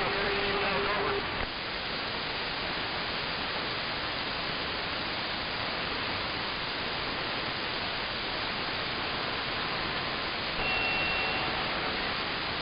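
CB radio receiver hissing with AM static on the open channel between skip transmissions. A faint voice and hum end about a second in, and near the end a carrier keys in with a brief high whistle.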